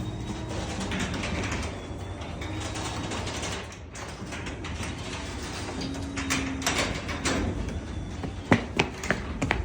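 An old garage door opener running, the door moving along its track with a steady mechanical rattle, a brief lull about four seconds in, and several sharp clicks and knocks near the end.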